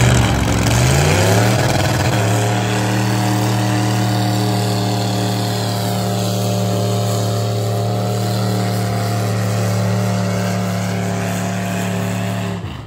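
Lifted truck's engine revving up over the first two seconds, then held at high, steady revs while its oversized tyres spin in a smoky burnout. The sound stops abruptly near the end.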